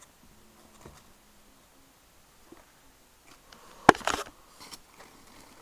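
Handling noise: a sharp knock about four seconds in, followed by a brief rattle and a smaller click, as a plastic tub or lid is moved; otherwise faint room tone.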